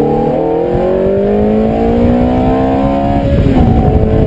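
Ferrari F430's V8 engine accelerating hard, its pitch climbing steadily for about three seconds, heard from the open-top cockpit. Near the end the revs fall away and the sound turns rougher and noisier.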